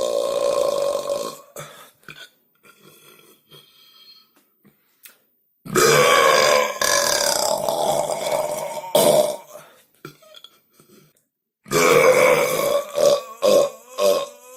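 A teenage boy burping long and loud, three times. The first trails off about a second and a half in, the second lasts about three seconds from near the middle, and the third, near the end, breaks up into short pulses.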